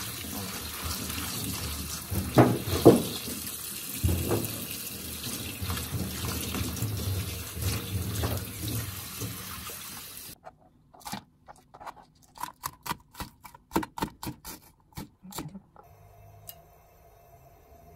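Tap water running into a colander of chopped napa cabbage while a hand stirs and rubs the leaves, with a few louder thumps from the handling. The water stops abruptly about ten seconds in. A run of sharp clicks and taps follows for about five seconds.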